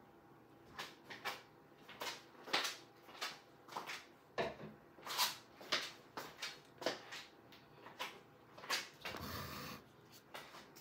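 Silicone spatula scraping and knocking against the sides of a plastic measuring jug, as lye is stirred into coconut milk until it dissolves. The strokes are short and irregular, about one or two a second, with one longer scrape near the end.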